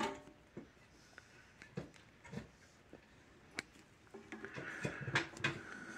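Diagonal cutters snipping through a wire at the start, then scattered faint clicks and rustling as the cut wires are handled.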